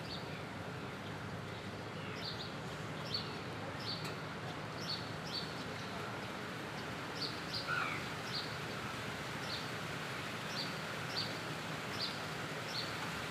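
Steady hiss of rain, with a small bird repeating short high chirps, often in pairs, throughout. A single different, lower call sounds near the middle.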